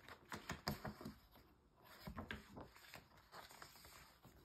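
Faint rustling and soft taps of a picture-book page being handled and turned over by hand, in a few short scattered bursts.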